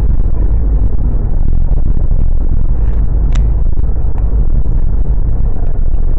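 Steady low road and engine rumble heard inside the cabin of a moving Peugeot car, with one brief sharp high sound about three seconds in.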